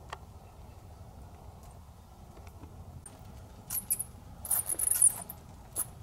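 Bats squeaking from inside a wooden wall cavity: clusters of very high, thin 'chee-chee' calls much like cheeping bird chicks. They start a few seconds in and come thickest a little after the middle.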